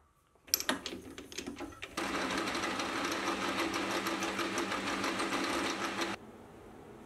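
Metal lathe running as its tool faces the end of an aluminium rod: a steady, evenly ticking machine sound that starts abruptly about two seconds in and cuts off just after six seconds. Before it come a few sharp knocks and clicks.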